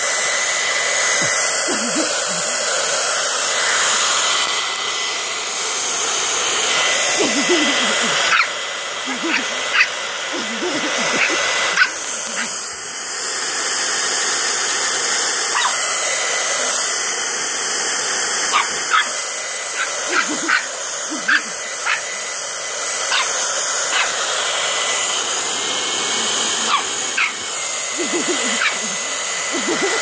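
Handheld hair dryer blowing steadily on its cool setting, with a Shih Tzu puppy's short barks and yaps breaking in now and then.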